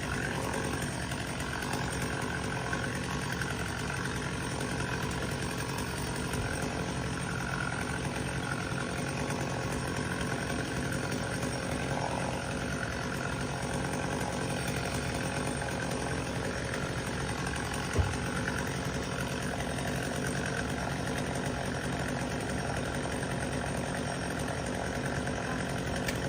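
An engine running steadily at idle, with one sharp knock about two-thirds of the way through.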